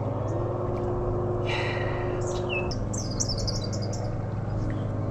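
Red-winged blackbird singing: a short call about a second and a half in, then a high trill around three seconds, over a steady low hum.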